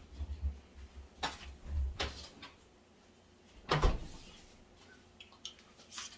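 Kitchen handling noises: low thuds in the first two seconds, two sharp clicks, then a heavier clunk about four seconds in, like a door or cupboard being shut.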